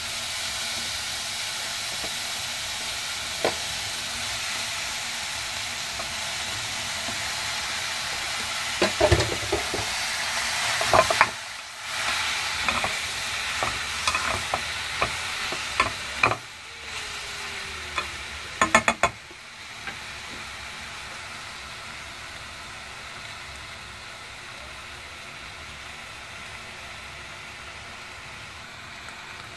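Broccoli and onions sizzling in a small saucepan on a gas stove, with kitchen tongs clicking and knocking against the pan as the florets are added and turned between about 9 and 19 seconds. The sizzle drops to a quieter hiss for the last third.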